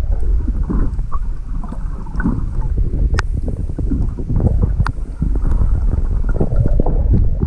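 Water rushing and churning around a submerged action camera, heard as a loud, muffled low rumble with scattered clicks and knocks, one sharper click about three seconds in.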